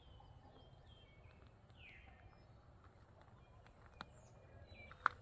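Birds chirping faintly outdoors, a run of short falling chirps with one longer downward sweep. Two sharp clicks come near the end.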